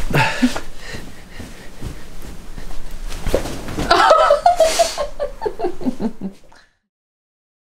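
A person laughing in short breathy bursts over close rustling of a bedsheet against the microphone. The sound cuts to dead silence about six and a half seconds in.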